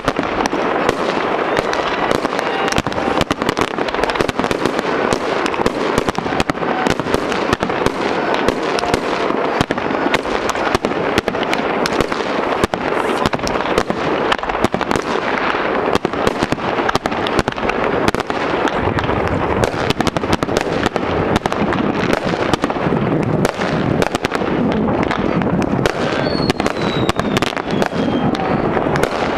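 Fireworks display: aerial shells bursting in a rapid, unbroken run of bangs and crackling, with a thin falling whistle near the end.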